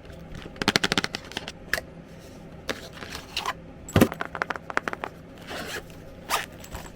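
Packaging of a small camera microphone being handled and opened by hand: a quick run of rattling clicks about a second in, then scattered scrapes and rustles and one sharp knock about four seconds in.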